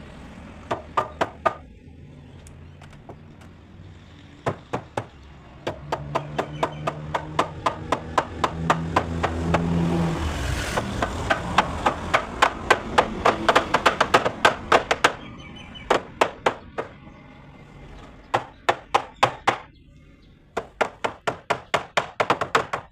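Repeated sharp strikes on wood in quick runs of several blows a second, the work of hand-shaping timber for a door. Partway through, a low engine hum rises and fades in the background.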